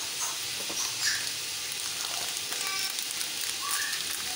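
Minced meat (keema) browning in hot oil in a cooking pot, a steady sizzle.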